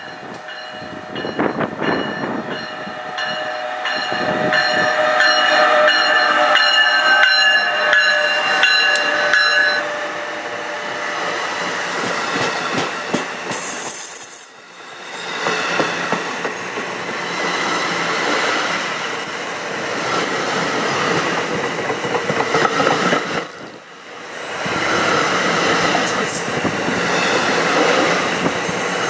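Train running, with several steady high tones sounding together for about the first ten seconds, then a continuous rushing noise that dips briefly twice.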